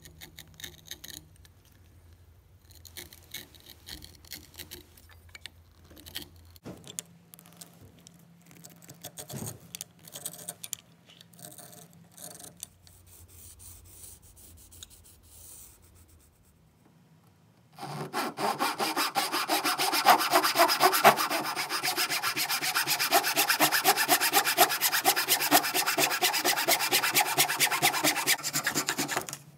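Faint clicks and handling noise, then about 18 seconds in a hand saw starts cutting through a small block of wood, with rapid, steady rasping strokes that run on for about eleven seconds and stop just before the end.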